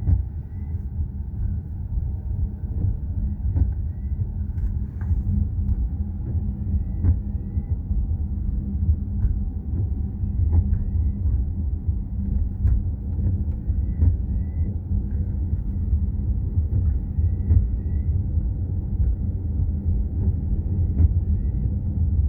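Steady low rumble of a car's engine and tyres as it drives, heard from inside the cabin, with faint light clicks and brief chirps now and then.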